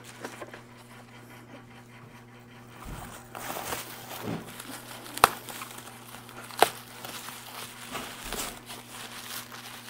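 Plastic bubble wrap rustling and crinkling as a wrapped part is handled and unwrapped, starting about three seconds in, with two sharp clicks a little past halfway.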